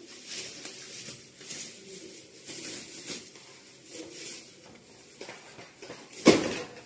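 Short rustling and scraping handling noises, a few seconds apart, then one loud knock a little over six seconds in.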